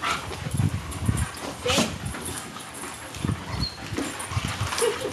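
A group of dogs playing rough together, with one short bark a little under two seconds in.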